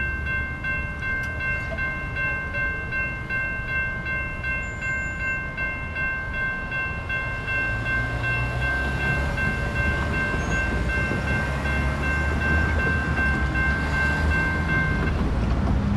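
Railroad crossing warning bell ringing in a fast, even rhythm, stopping about fifteen seconds in as the gates finish rising. Under it is a low rumble of road traffic that grows louder in the second half as cars drive across the tracks.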